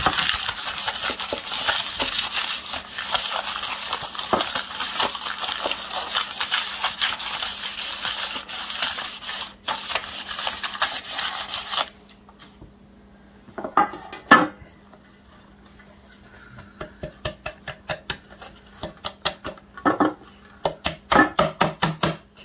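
Butter paper rubbed briskly around the inside of an aluminium cake tin: a dense, scratchy scrubbing that stops about halfway. Then a couple of metal knocks and a run of quick light taps and clinks as the aluminium tins are handled for flouring.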